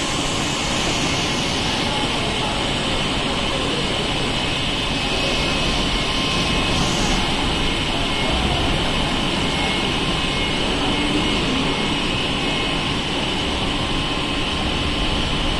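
Steady running noise of a PET sheet extrusion line, an even machine din with a steady high-pitched hiss over it.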